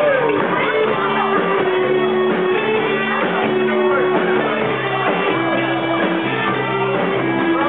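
Live rock band playing loudly, led by electric guitar, with held notes and sliding lines over a steady bass.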